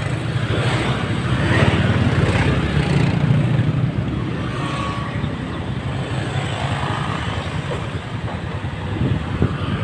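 Small motorcycle engines, automatic scooters, running as they ride past close by, a steady low engine rumble that is loudest in the first few seconds.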